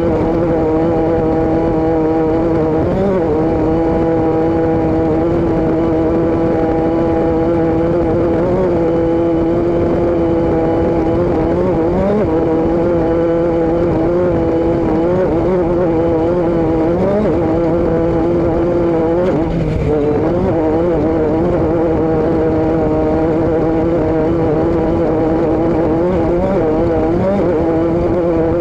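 Vehicle engine and exhaust droning at a steady speed, its pitch holding nearly level with small wobbles and a brief dip about two-thirds of the way through.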